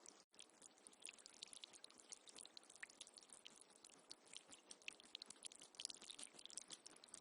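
Faint water trickling and dripping: many small irregular ticks over a soft hiss, with a momentary break just after the start.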